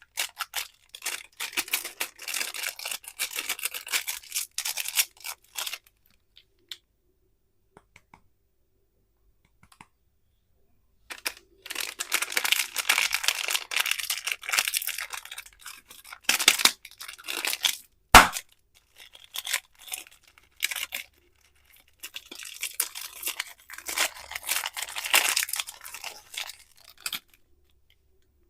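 Candy wrappers being torn open and crinkled, in crackly bursts separated by a pause of a few seconds. About two-thirds of the way in there is one sharp snap, the loudest sound.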